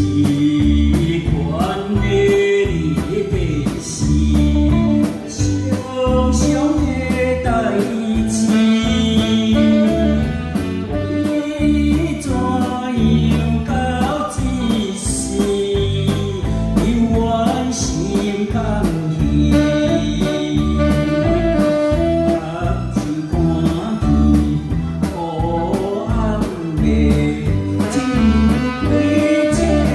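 A man sings a slow popular song into a microphone, backed by saxophone and electric guitar over a steady beat.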